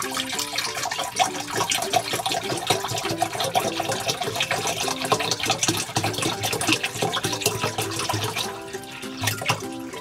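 A stream of water pouring and splashing into a glass bowl, with light background music playing a simple melody underneath.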